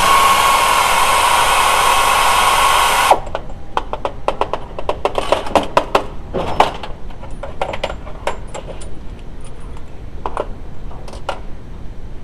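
A power tool whirs steadily for about three seconds and cuts off sharply. Scattered clicks and light metal knocks follow.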